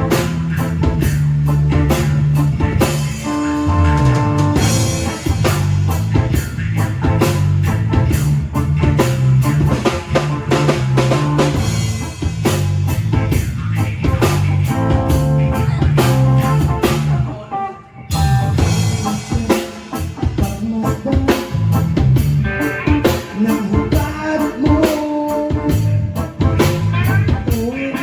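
A rock band playing live, with drum kit, bass and electric guitar, and no vocals. The band drops out for a moment a little past halfway, then comes straight back in.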